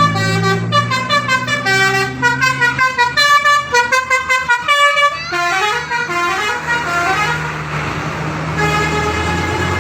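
Basuri telolet multi-tone bus horn playing a quick tune of short notes, then a rising run of notes about five seconds in. A rush of noise follows, and a held chord near the end.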